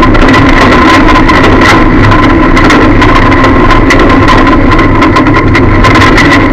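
Lada demolition-derby car's four-cylinder engine running hard, heard from inside the stripped cabin. The sound is overloaded at full level, with many short knocks and rattles from the body as the car drives.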